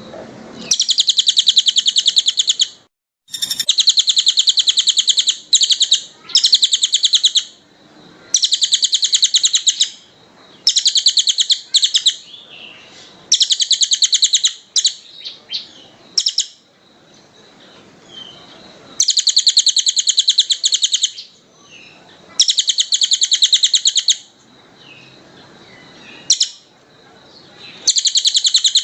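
A songbird sings a fast, dense song in bursts of very rapid high notes. Each phrase lasts one to two seconds, and about a dozen phrases come one after another with short pauses between them.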